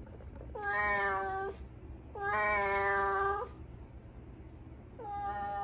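Kitten meowing: three long, drawn-out meows at a steady pitch, the second the longest and the third starting near the end.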